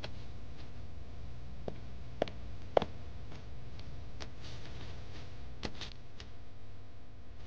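Scattered light knocks and clicks, with soft paper rustling, as magazines and small objects are set straight on a coffee table, over a low steady room hum. The sharpest knock comes just under three seconds in.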